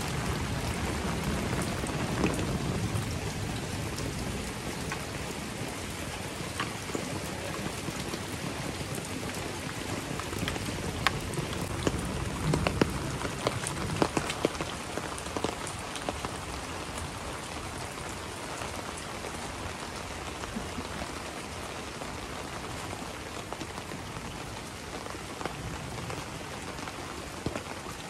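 Heavy tropical rain falling steadily, with individual drops ticking close by, most often around the middle. A low rumble fades out in the first few seconds.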